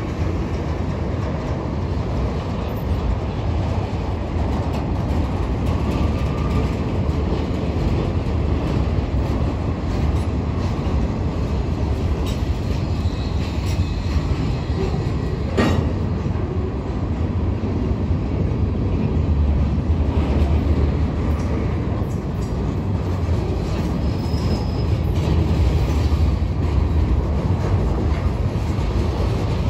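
Long freight train rolling past, its cars running steadily along the rails, with one sharp click a little past halfway.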